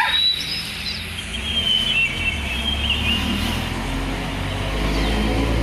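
Birds chirping in short high calls over a low, steady hum that grows slightly louder toward the end.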